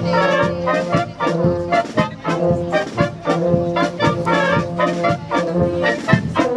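A village wind band playing: tuba, trombones, trumpets or flugelhorns, clarinets and saxophones together, in held chords over a steady beat of about two strokes a second.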